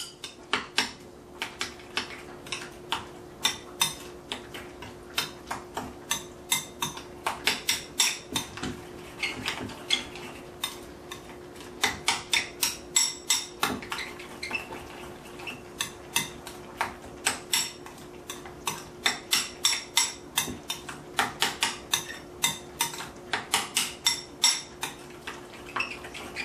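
Metal spoon clinking repeatedly against a glass mixing bowl as a wet marinade is stirred through pieces of pork: irregular clinks, a few a second.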